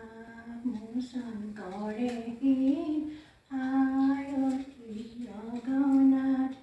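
A voice singing a slow melody with long held notes and no clear words, breaking off briefly about halfway through.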